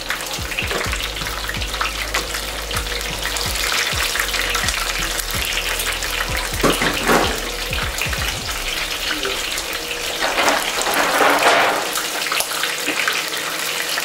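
Filled wontons deep-frying in very hot vegetable oil: a steady sizzle full of fine crackles, swelling louder about halfway through and again near the end.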